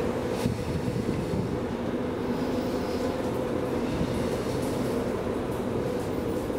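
DEVE hydraulic elevator in travel: a steady machine hum with a held pitched tone over a low rumble.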